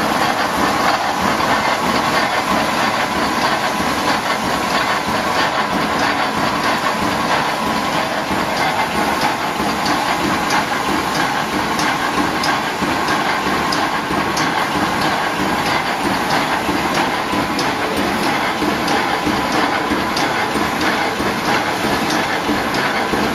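Automatic roll-type welded wire mesh machine running, with a regular clacking from its welding and feeding cycle over a steady mechanical din.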